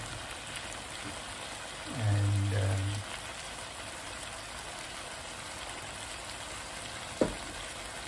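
Beef curry frying in a pan with a steady sizzle. A single sharp knock comes about seven seconds in.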